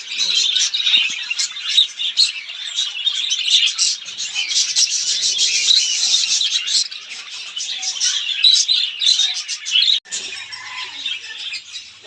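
Many small pet birds chirping and chattering together, a dense continuous mass of short high overlapping calls, broken by a sudden brief drop about ten seconds in.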